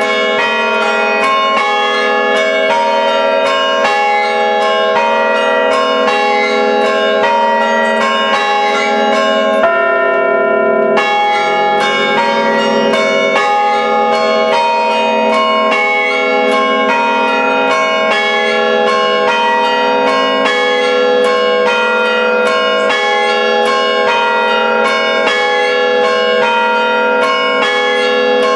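Five church-tower bells rung by hand through rope pulls, struck several times a second in a quick, continuous chiming pattern, each strike ringing on under the next. About a third of the way in the strikes stop for about a second while the bells hum on, then the pattern resumes.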